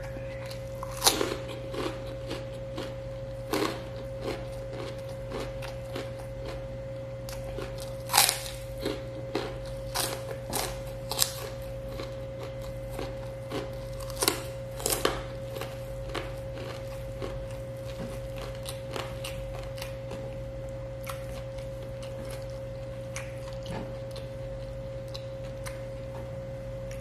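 Close-up sounds of a man eating with his hands: chewing and crunching of mouthfuls of rice, with sharp bites and smacks that come thick over the first half and thin out toward the end, over a steady low hum.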